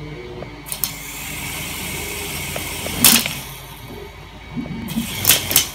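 Small electric RC helicopter's motor and rotors whirring as they spin on the carpet with one 3D-printed rotor blade fitted, and the helicopter does not lift off. Sudden loud swishing noises break in about three seconds in and several times near the end.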